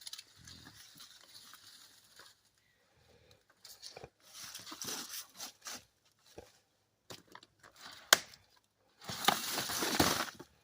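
Dry garden vines and leaves rustling and tearing as they are pulled up by hand, in irregular bursts, the loudest near the end. There is a single sharp snap a little after the middle.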